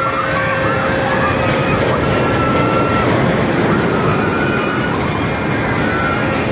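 Riders on a half-pipe thrill ride screaming in a series of long high cries, one every second or two, over the steady rolling noise of the ride car on its track.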